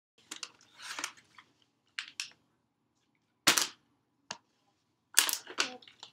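Plastic water bottle being flipped, landing and picked up again: a string of sharp plastic knocks and clatters, the loudest single one about three and a half seconds in, followed by a quick cluster of knocks near the end.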